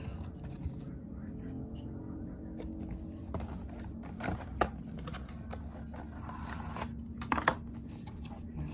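Handling noises over a steady low hum: soft rustling and a few sharp clicks, the loudest about halfway through and a quick cluster near the end.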